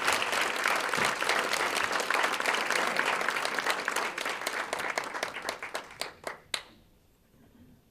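Audience applauding after a song, the clapping thinning out about five seconds in and dying away with a few last claps.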